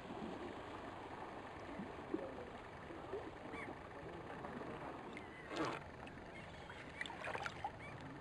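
Kayak paddle dipping in calm sea water, with faint lapping. One louder paddle splash comes about halfway through, and a few lighter splashes follow near the end.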